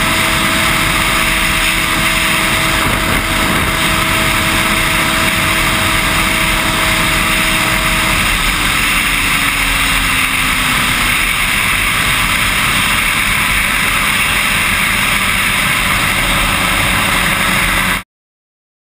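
Suzuki GSX-R 1100 inline-four running hard at high road speed, its steady engine note half buried under wind rush on the microphone. About eight seconds in, the engine note falls slightly. The sound cuts off abruptly near the end.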